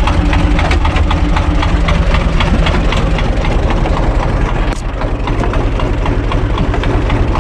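Universal U445 DT tractor's four-cylinder diesel engine running steadily with an even diesel clatter, heard from inside the cab.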